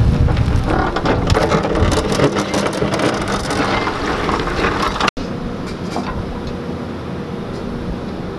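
Volvo excavator's diesel engine running steadily beside the hiker, with loose stones and gravel clattering and sliding down the broken slope through the first few seconds. The sound breaks off sharply about five seconds in, then the engine hum carries on with fewer rattles.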